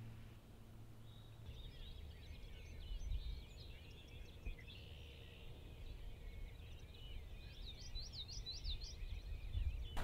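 Faint chorus of songbirds: many quick chirps and trills, with a run of clearer whistled notes near the end, over a low background rumble.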